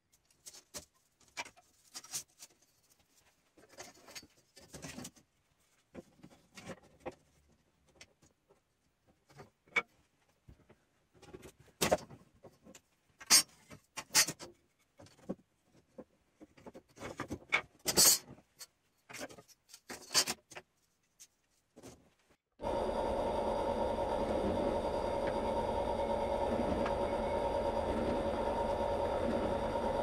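Scattered knocks and clicks of wooden strips being handled. About two-thirds of the way through, a benchtop drill press motor starts suddenly and runs with a steady hum.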